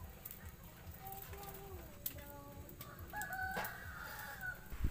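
Rooster crowing in the background: shorter, fainter calls about a second in, then one long drawn-out crow from about three seconds in.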